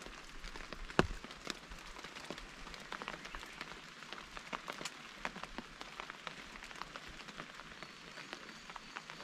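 Rain falling, with many irregular raindrop taps close to the microphone; the sharpest tap comes about a second in.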